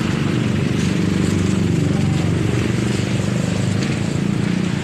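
A motor vehicle engine running steadily with a low, evenly pulsing rumble.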